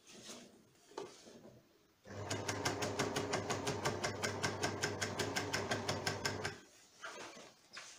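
Overlock machine (serger) starting about two seconds in and running steadily for about four and a half seconds as it stitches a seam through jacket fabric, with a low hum under a fast, even ticking. Before it starts there are faint sounds of the fabric being handled.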